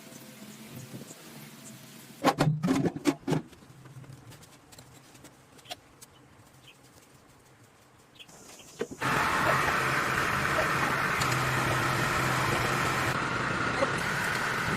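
A few sharp clanks, then about nine seconds in the excavator's engine starts suddenly and settles into a steady run.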